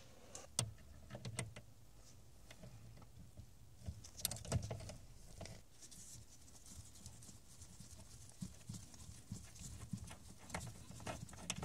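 Scattered, irregular metallic clicks and knocks from a hand tool and socket being worked on a steering shaft's universal joint bolt, with a busier cluster about four to five seconds in, over a steady low hum.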